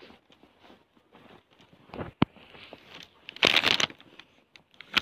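Footsteps crunching on packed snow, with a sharp click about two seconds in and a brief, louder rush of rustling noise midway.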